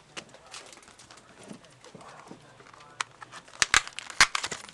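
Small cardboard trading-card pack boxes being handled and opened: faint rustling, then a few sharp clacks and taps in the last second and a half.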